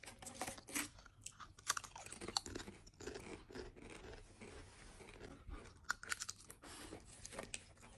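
Potato chips being crunched and chewed close to the microphone: a run of short, irregular crisp crunches.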